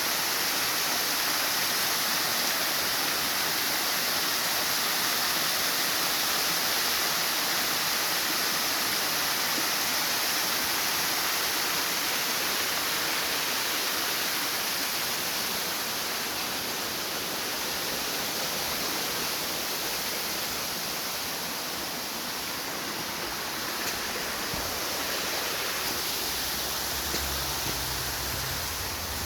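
Waterfall: a steady rush of falling water. A low rumble joins in near the end.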